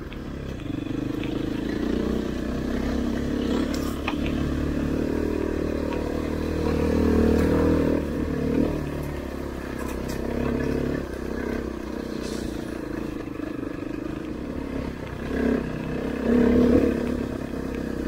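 KTM off-road motorcycle engine running under changing throttle, its pitch rising and falling as it is ridden along a rutted dirt trail. A few sharp knocks and rattles are heard along the way.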